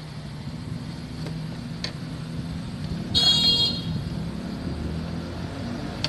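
A single short electronic beep, a little past halfway, from the microwave oven's control board as its newly fitted button switch is tested, over a steady low hum.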